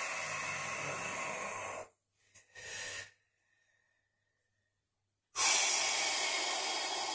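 A man breathing hard through his mouth while holding a deep 90/90 hip stretch. A long breath ends about two seconds in, a short one follows, and after a pause another long, loud breath starts about five seconds in.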